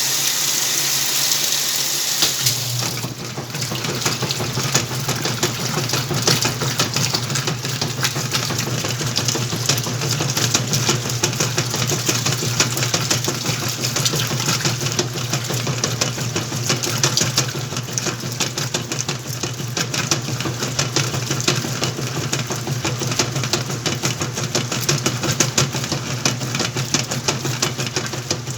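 Whirlpool washing machine at the start of a wash: water rushes in for the first couple of seconds, then the motor starts about two and a half seconds in and runs with a steady low hum and a fast, dense rattle.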